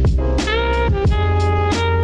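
Background music: an upbeat track with a steady drum beat, a bass line sliding between notes, and a guitar or horn melody.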